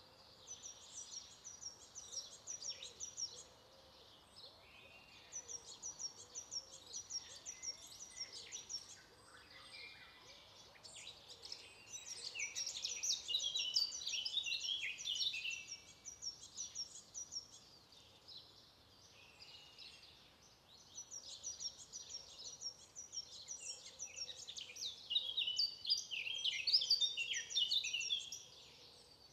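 Birdsong from several small birds: a run of quick, high chirps repeated in short phrases, and busier, faster song that comes in two louder stretches, over a faint steady background.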